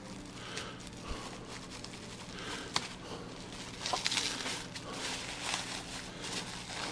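Packing material and a cardboard box being handled: scattered rustling and a few sharp clicks, busiest about four seconds in, over a steady low hum.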